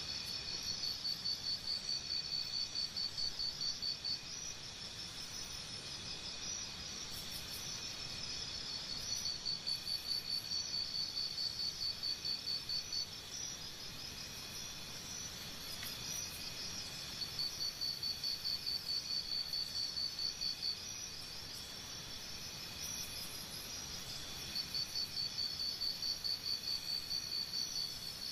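Forest insects: one gives a high, pulsed chirping trill in bouts of about four seconds, four times, over a steady high chorus of other insects.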